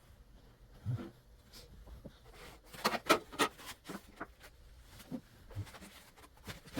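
Clicks and snaps of a hand cutting tool working through the power cord to chop off the broken three-prong plug, a cluster of sharp snaps coming about three seconds in.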